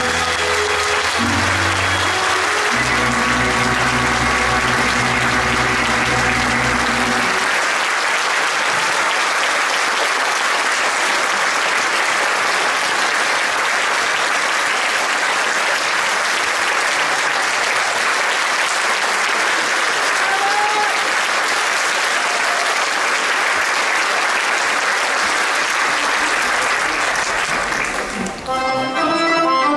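Audience applauding. For the first seven seconds or so the band holds its final chords under the applause. The applause breaks off near the end as accordion-led folk music strikes up.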